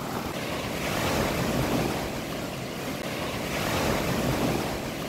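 Small waves breaking and washing onto a sandy beach, surging about a second in and again near four seconds.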